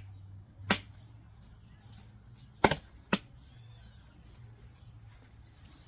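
Three sharp knocks of hard objects being handled: one about a second in, then two close together near the middle, over a low steady hum.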